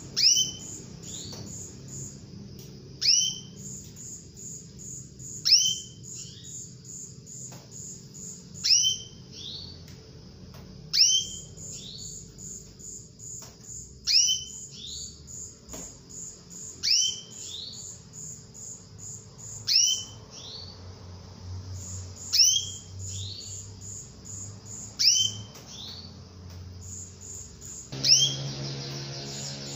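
Female domestic canary calling: a loud, sharp call note sweeping down in pitch, repeated about every two and a half to three seconds, eleven times in all.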